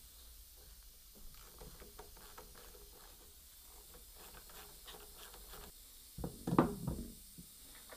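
Hand tool working on a belt idler pulley held in a vise: faint light clicks and scrapes of metal on the pulley and bearing, then a short cluster of louder knocks about six seconds in as the tool is lifted away and handled.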